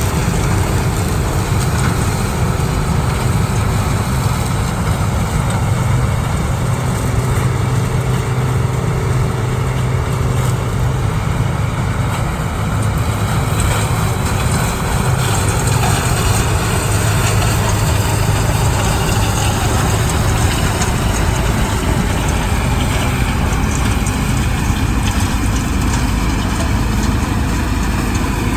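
CLAAS Mega 204 combine harvester running steadily, a continuous engine drone with the noise of its working machinery.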